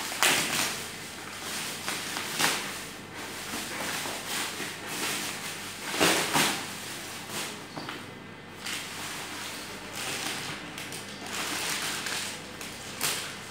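Plastic mailer bag and bubble wrap crinkling as a parcel is unwrapped, with the loudest bursts near the start and about six seconds in, then a cardboard shoebox being opened and tissue paper rustling.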